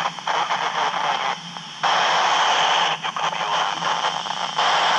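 FM static hissing from a handheld ham radio's speaker: open-squelch noise on the International Space Station's 2-metre downlink between transmissions. The hiss jumps louder about two seconds in and again near the end.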